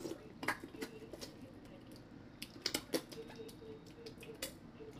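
Close chewing and lip smacking while eating corn on the cob: a string of sharp, wet mouth clicks, loudest in a quick cluster about two and a half to three seconds in.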